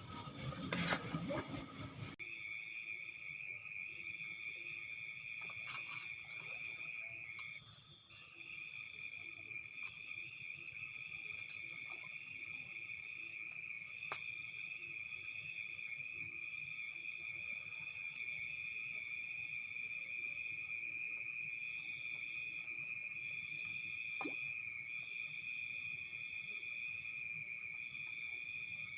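Night insects calling together: a fast pulsing high chirp and a steady, slightly lower trill, the trill breaking off briefly about eight seconds in. A burst of loud rattling knocks covers the first two seconds.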